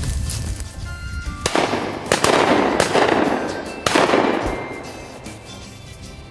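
Several shotgun blasts, the first about a second and a half in and the last near four seconds in, each trailing off slowly as it fades, over background music.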